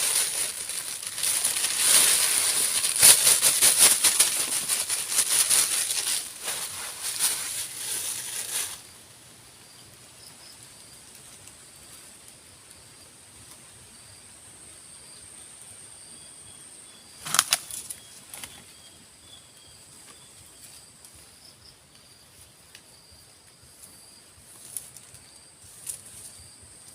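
Rapid, dense rustling and flapping for about nine seconds, then a quieter stretch with a steady high-pitched whine and faint chirps, broken by one sharp rustle or knock about 17 seconds in.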